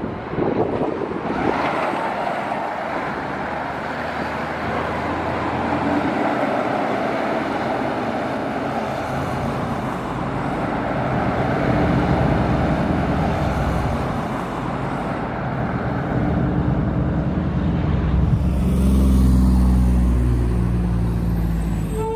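Road traffic with heavy trucks: a steady rush of tyres and engines, with one diesel engine's low drone growing louder about three-quarters of the way through.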